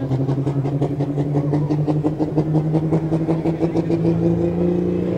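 Turbocharged diesel engine of a Pro Stock pulling tractor running at the start line, its revs climbing slowly and steadily, with a fast, even throb.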